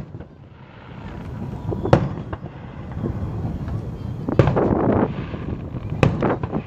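Fireworks going off: three sharp bangs, about two seconds apart, over a steady low rumble, the middle one followed by about a second of denser rumbling.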